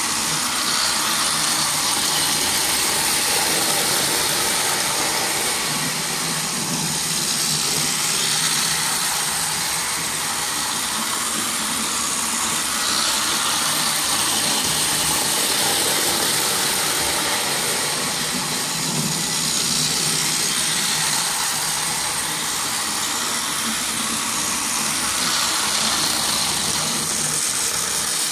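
Battery-powered toy train running on plastic track: its small electric motor whirs steadily and its wheels rattle along the rails, the sound swelling and easing a little as it goes.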